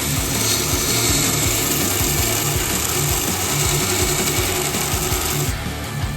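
Small belt grinder grinding a steel knife blank, a steady hiss that breaks off about five and a half seconds in.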